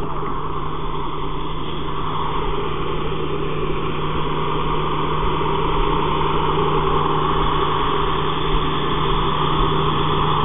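Fire truck engine running steadily: a constant low hum with a hiss over it, growing slightly louder about halfway through.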